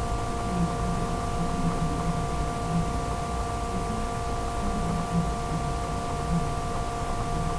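Steady electrical hum of several pitches over a constant hiss, with no programme sound: dead air on a poor-quality TV stream capture.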